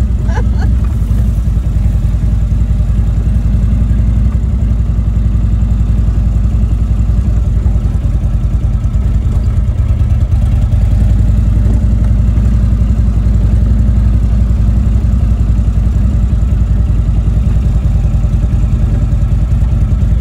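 Indian motorcycle's V-twin engine running at a steady low speed while riding along a sandy dirt trail, a low, even rumble with no revving.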